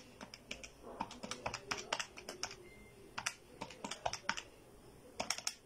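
Light, irregular clicking of keys being tapped in quick runs, with a short pause near the end.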